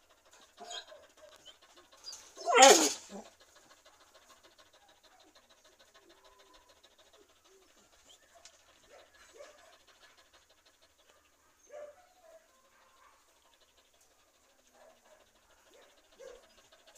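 Young dog panting faintly and rapidly, with one loud, short noise about two and a half seconds in.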